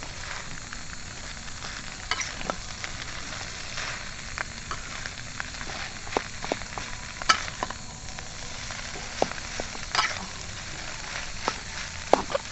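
Nasi goreng (fried rice) sizzling and frying in a pan, a steady hiss with scattered sharp clicks and ticks.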